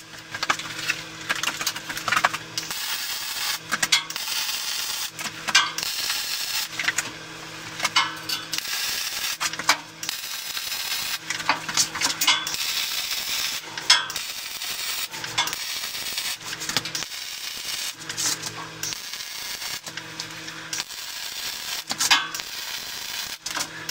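MIG welder crackling and hissing as it lays a series of short welds on the steel handrail spindles. The welder hums during each pull of the trigger, about a dozen welds of roughly a second each.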